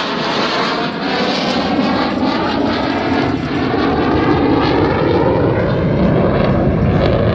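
Jet aircraft flying past overhead, a loud steady rush of jet noise that swells a little over the second half.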